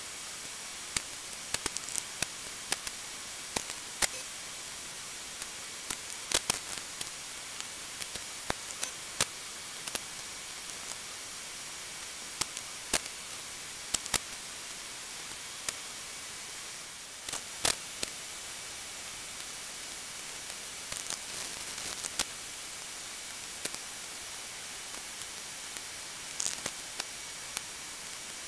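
Steady static hiss broken by scattered sharp clicks.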